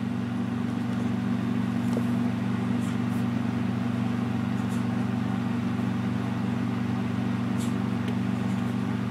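Steady low mechanical hum made of several low tones, with a few faint light ticks.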